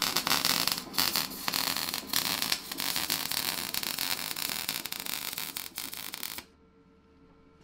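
Wire-feed welder arc crackling and sizzling as steel frame tubing is welded, in runs broken by a few brief pauses, stopping abruptly about six and a half seconds in.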